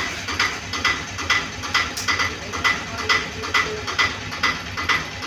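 A steady, evenly spaced ticking beat, about two strikes a second.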